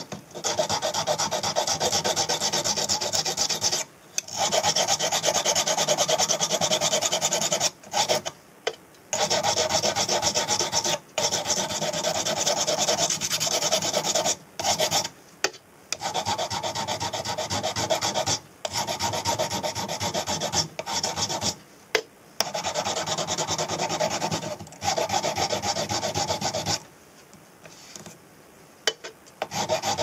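Metal table fork being rubbed by hand with an abrasive block: a steady scraping rub, smoothing the repaired fork. It comes in runs of a few seconds, broken by about ten brief pauses, the longest near the end.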